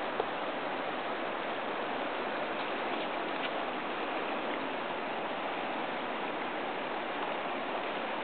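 Steady rush of river water running over rocky shoals, with one short click near the start.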